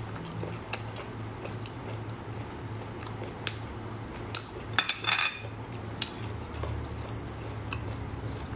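Hard sea snail shells clicking and clinking against a plate and a small glass sauce bowl as they are handled: a few scattered sharp clicks, with a quick cluster of clinks about halfway through, over a low steady hum.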